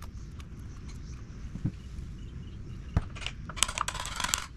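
Wood chisel cutting a latch-plate recess in a door edge: a couple of sharp hammer taps on the chisel, then short bursts of the blade scraping and paring wood chips near the end.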